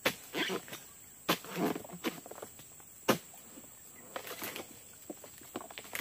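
Palm-harvesting chisel (dodos) on a long pole striking the frond bases of an oil palm: several sharp chopping blows a second or two apart, with rustling of fronds and dry litter between them.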